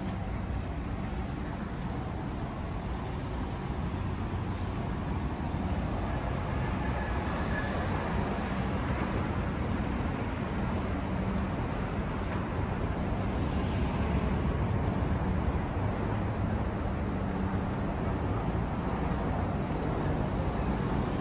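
City street traffic noise: a steady rumble of vehicles on the road, with a low hum underneath.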